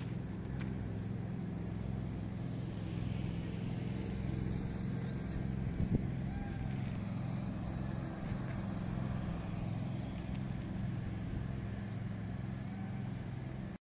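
Steady low outdoor rumble, with a single short knock about six seconds in.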